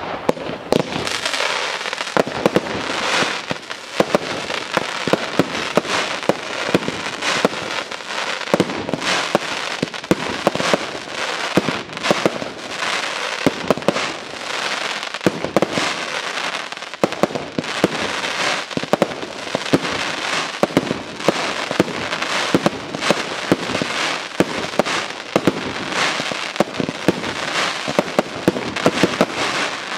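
Professional fireworks display: a continuous barrage of aerial shells and rising stars firing and bursting, with many rapid sharp bangs and pops overlapping, starting abruptly at the outset.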